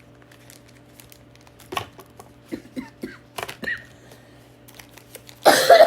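Plastic packaging rustling and crinkling in short scattered bursts as small items are put back into a bag, ending in a loud, harsh rustle near the end.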